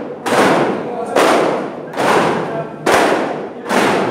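Daff frame drums struck by hand by a group playing together, beating out a steady pulse of five loud strokes, a little faster than one a second.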